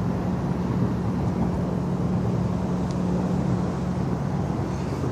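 Steady low mechanical hum with a constant drone beneath it, like engines running at a distance.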